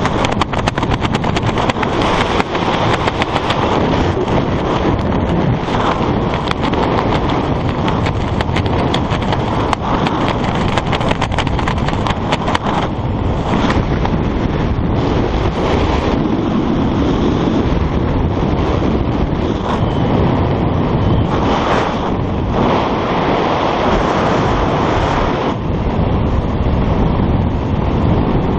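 Wind rushing and buffeting over the camera's microphone during a skydive, crackly and gusty for the first dozen seconds, then steadier with brief dips.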